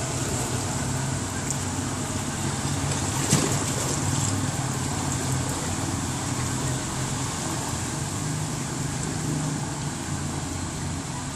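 Steady rushing noise of floodwater running down a flooded street, with a low steady hum beneath and a single sharp knock about three seconds in.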